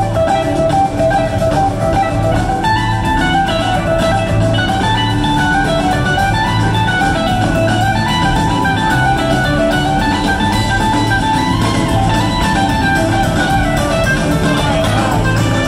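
Live rock band playing an instrumental jam: an electric guitar plays a winding lead line that steps up and down over drums and bass, recorded from the audience.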